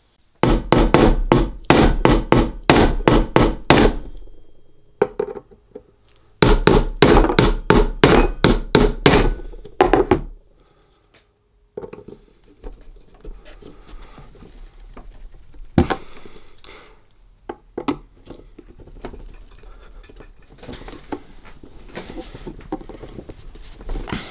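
A hammer taps quickly on a rusted, seized screw in the metal frame of a Facit C1-13 mechanical calculator, to break up the rust. It comes in two runs of a few seconds each, about four strikes a second. After that there are quieter handling noises on the metal, with one sharp click.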